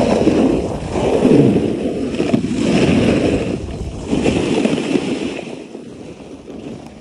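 Snowboard sliding and scraping over packed snow in uneven swells, with wind buffeting the microphone. It dies down about five and a half seconds in as the board slows.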